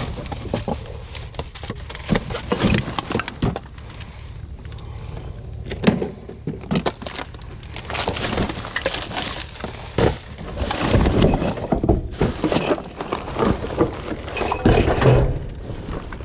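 Junk being pulled apart and handled while scrapping for metal: irregular clattering knocks and cracking of plastic and other debris, busiest near the middle and again near the end.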